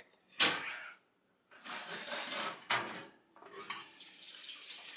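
Oven door opened and a metal broiler pan pulled out over the rack, clattering and scraping metal on metal. The loudest clank comes about half a second in, with another sharp knock near the middle.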